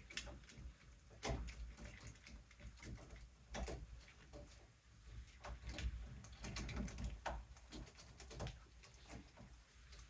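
Irregular metal clicks and knocks as the two halves of a door knob set are pushed together through the door, their spindle and mounting posts rattling into the latch.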